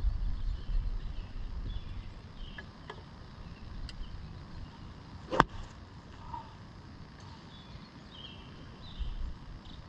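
A 5-iron strikes a golf ball off the fairway once, a single sharp crack about five and a half seconds in. Low wind rumble on the microphone dies away after about two seconds.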